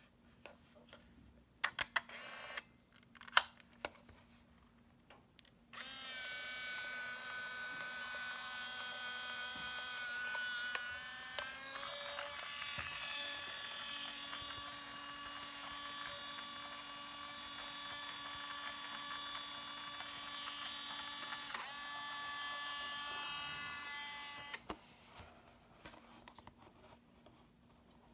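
A few sharp handling clicks on an Olympus Trip AF 51 compact film camera, then its built-in film-transport motor whirs steadily for nearly twenty seconds. The pitch shifts twice, and the whir stops suddenly.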